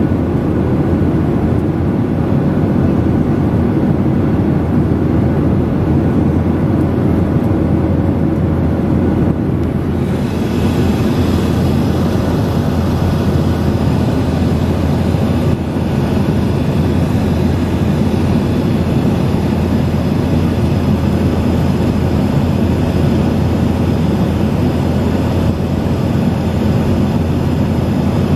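Steady in-flight cabin noise of a jet airliner at a window seat: the low drone of the engines and the rush of air past the fuselage. About ten seconds in, a brighter hiss joins it and stays.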